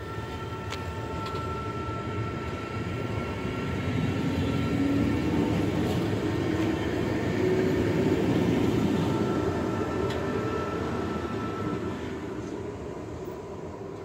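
NS Sprinter (SGM) electric multiple unit running past along the platform. The wheel and rail rumble builds to its loudest about eight seconds in and then fades. A faint steady high whine comes and goes.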